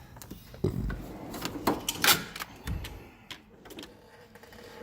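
Small tools clicking and clattering as they are handled and moved around in a steel toolbox drawer, with a few irregular knocks.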